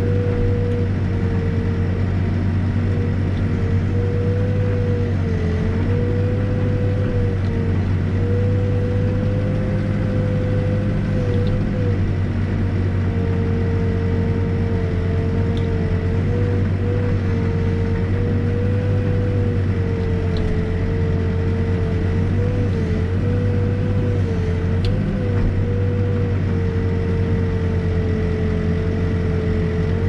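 New Holland backhoe's diesel engine running steadily, heard from inside the cab: a low hum with a slightly wavering whine above it.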